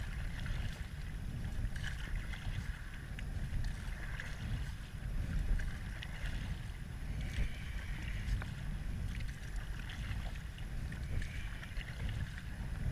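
Moving river water washing and splashing around a raft, over a steady low rumble.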